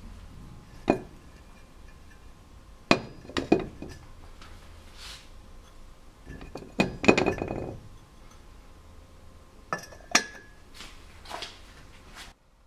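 Glassware clinking: a series of sharp knocks on glass, several ringing briefly. A denser rattling clatter comes about seven seconds in.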